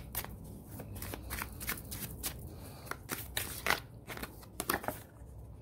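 A deck of tarot cards being shuffled by hand: a quick, irregular run of card clicks and slaps that stops about five seconds in.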